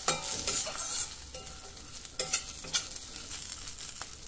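Flat steel spatula stirring and scraping peanuts, chana dal and green chillies around a stainless steel kadhai, over a steady sizzle of the oil they are roasting in. The scraping strokes come irregularly, most of them in the first few seconds.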